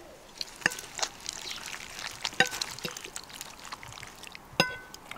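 Forks scraping and clinking against a large metal baking tray and plates as baked salmon is flaked and served, with several sharp ringing clinks.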